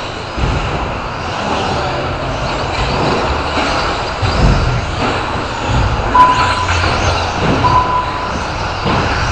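Radio-controlled off-road trucks racing on an indoor dirt track: motors running with repeated low thuds. Two short high steady beeps come about six and seven and a half seconds in.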